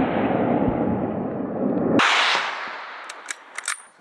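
A hunting rifle shot about two seconds in, its report echoing and fading over the next second and a half. Before it comes a loud, steady rushing noise.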